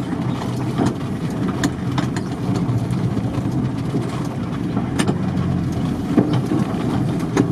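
An off-road SUV's engine and running noise heard from inside the cabin as it drives slowly over a rough dirt track, with a few sharp light clicks and knocks.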